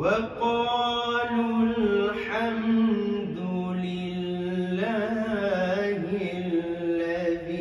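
A man reciting the Quran in the melodic tilawat style. He draws out long held notes whose pitch steps and wavers up and down. The voice comes in suddenly right at the start.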